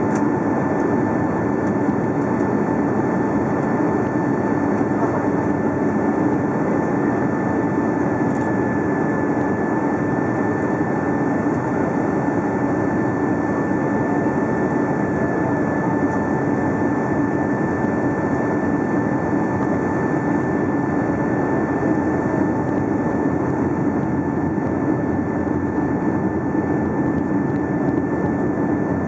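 Steady jet engine and airflow noise inside the cabin of a Boeing 757-200 descending on approach with its flaps extended, an even rush with a faint high whine and a low hum running through it.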